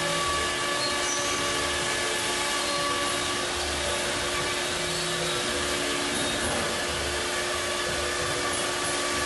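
CNC router running: a steady spindle whine over cutting noise, with a low pulse repeating about once a second underneath.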